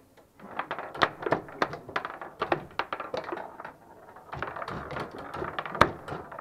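Foosball table in fast play: the ball and the plastic players clack and the rods knock in quick, irregular strikes, starting after a short pause. One hard knock near the end stands out as the loudest.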